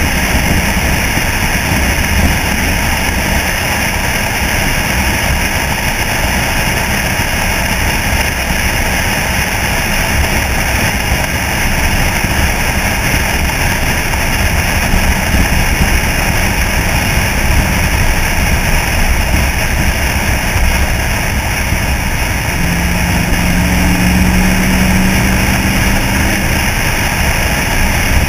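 A 1964 Chevy C-10 pickup driving at cruising speed: engine, road noise and wind buffeting on an outside-mounted microphone, steady throughout. A steady low hum joins in for a few seconds near the end.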